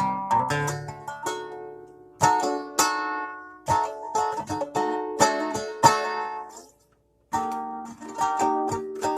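A plucked string instrument played solo: struck chords and single notes that ring and fade, with a short break about seven seconds in before the playing resumes.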